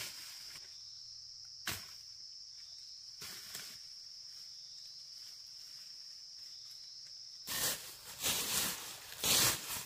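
An insect buzzing steadily on one high note, with a single sharp click about two seconds in. About three-quarters of the way through, the buzz gives way to a run of loud, irregular rustling and crunching noises.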